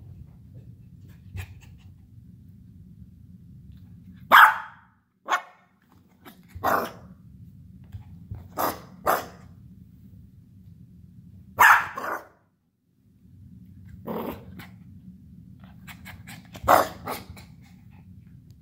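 Havanese puppy barking in short single barks, about eight of them spaced a second or more apart, the loudest about four, twelve and seventeen seconds in.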